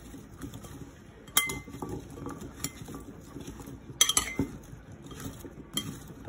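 Metal spoon stirring oiled chunks of butternut squash and turnip in a glass mixing bowl: soft shuffling of the vegetable pieces, with the spoon clinking sharply against the glass several times, loudest about four seconds in.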